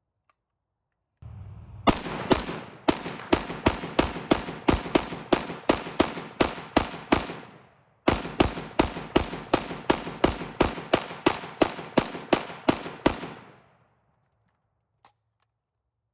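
PSA AK-pattern rifle firing rapid, evenly spaced shots, about three a second, in two strings with a brief pause near the middle. Each shot is followed by a short echo.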